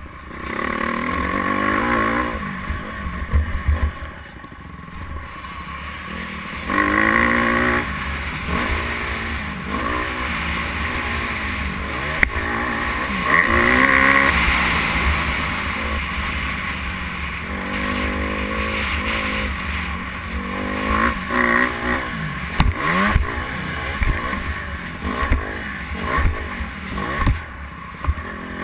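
Dirt bike engine, heard from the rider's helmet, revving up and down over and over as the rider accelerates, shifts and rolls off the throttle around a motocross track.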